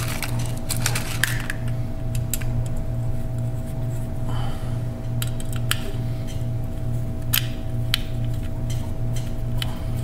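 A small starter tap being turned by hand to cut threads in a soft-metal heater control plate: scattered light metallic clicks and ticks as the tap cuts and is backed off. A steady, gently pulsing hum runs underneath and is louder than the clicks.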